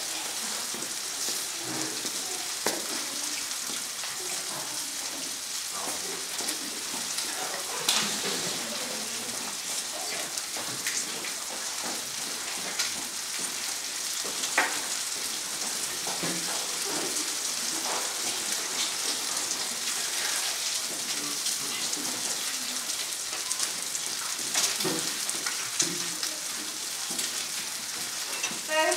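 Steak sizzling in a hot pan: a steady frying hiss, with occasional sharp clicks.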